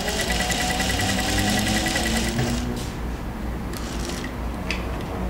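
Singer sewing machine stitching a seam in a rapid, even run that stops a little over two seconds in, followed by a few short rustles and clicks.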